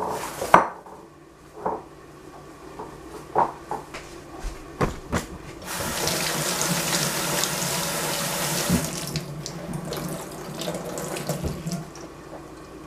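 Kitchen tap running into a sink for several seconds, starting suddenly about six seconds in and fading out near the end, after a few scattered clinks and knocks of kitchenware.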